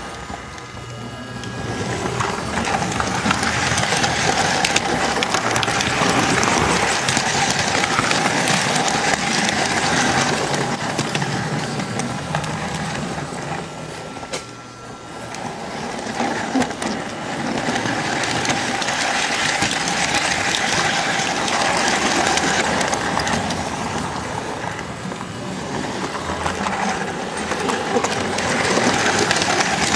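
S-gauge model train running: the small Flyonel Docksider switcher's motor and gears whirring steadily, with the wheels rattling over the track, heard from a camcorder riding on the flat car it pushes. The noise dips briefly about halfway through.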